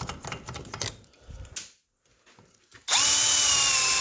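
A few scattered clicks and handling knocks, then about three seconds in a power drill starts and runs steadily with a high whine, spinning a 3/16 drill bit through an old brake-line fitting to clear it out.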